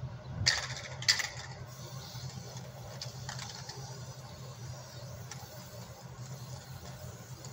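Hermetic refrigeration compressor running with a steady low hum. Two sharp knocks come about half a second and a second in, with lighter knocks later as the compressors are handled.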